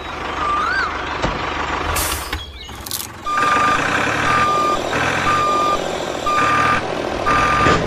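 Truck engine running with two short hisses of air about two and three seconds in. Then a reversing alarm sounds about once a second, five times.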